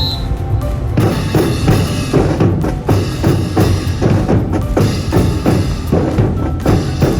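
A short whistle blast at the very start, then a student brass band comes in about a second later, playing with bass drum and snare in a steady marching beat.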